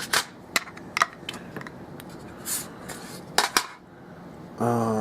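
Small metal tools clicking and tapping against a euro lock cylinder as a plug follower is fitted to it: several sharp separate clicks over about four seconds.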